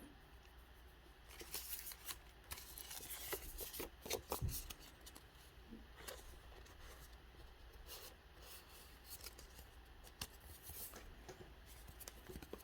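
Faint rustling and soft clicks of trading cards being handled and shuffled, busiest in the first few seconds and then sparser.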